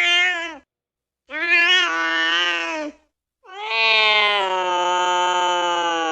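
Domestic cat meowing: three drawn-out meows, each longer than the one before, the last held long and steady.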